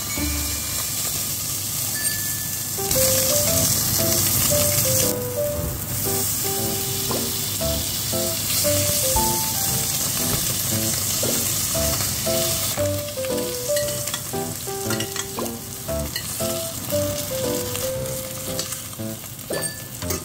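Fish fillet frying in hot oil and butter in a stainless steel pan: a steady sizzle, strongest in the first half and softening after about 13 seconds. Background music plays a melody over it.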